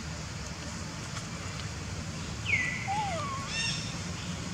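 A bird calling once: a clear whistle that drops and then holds, followed about a second later by a short, buzzy note. A steady low rumble runs underneath.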